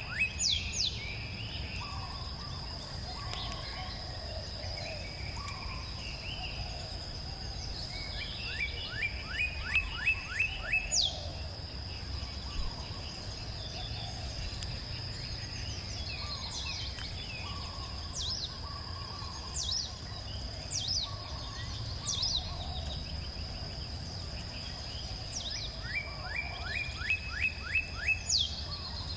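A songbird sings a short phrase of quick repeated notes three times: at the start, about ten seconds in, and near the end. Other birds give scattered short chirps over a steady high-pitched insect buzz.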